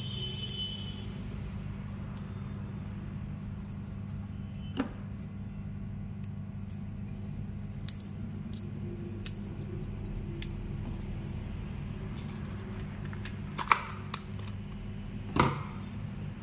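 Small plastic clicks and rustles of a strip of SMD diodes in carrier tape being handled and cut with scissors, with two sharper snips near the end. A steady low hum sits under it all.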